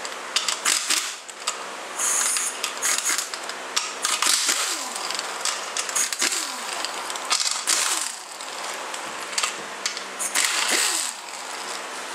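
Pneumatic impact wrench rattling in a series of short bursts as it spins out the rear cover bolts of a 42LE (A606) transmission case; after several bursts the air motor's whine falls away as it spins down.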